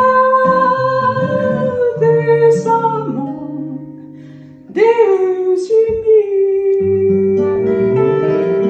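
Background music: a song with guitar and long held melody notes. The music fades down about three seconds in and comes back strongly just before five seconds.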